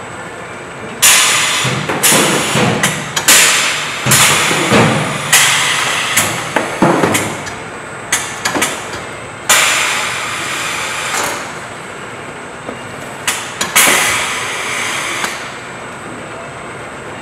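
Multi-station vacuum packaging machine being loaded: a run of sharp knocks and rushing hisses as lined cardboard boxes are set onto its stainless-steel stations, with two longer hisses later on. A steady machine hum with a faint high whine runs underneath.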